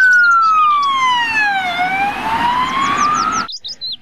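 Ambulance siren wailing: one slow falling-then-rising tone that cuts off suddenly about three and a half seconds in.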